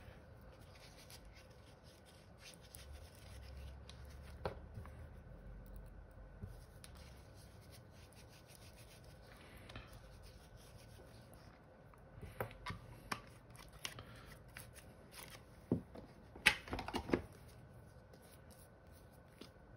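Faint handling sounds of small steel screws being wiped clean in a cloth patch: soft cloth rubbing and a few light clicks and taps as the screws and an Allen hex key are picked up and set down on a cloth-covered table, most of them in the second half.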